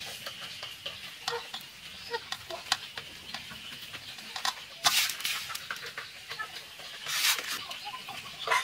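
Hands packing and pressing salted small fish for prahok down into a clay jar: a run of small clicks and scrapes, with louder scuffs about five and seven seconds in.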